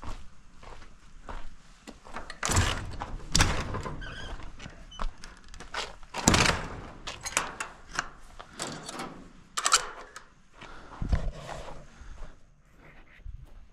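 A series of knocks and heavy thunks, the loudest about six seconds in, with scraping and rustling between them.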